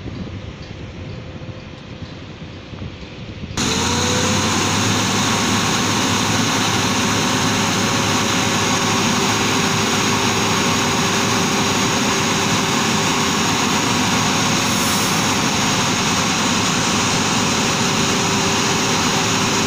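Three and a half seconds of faint, windy outdoor noise. Then a Volvo tipper truck's diesel engine cuts in suddenly, loud and steady, running as the hydraulic hoist raises the loaded dump body full of rock.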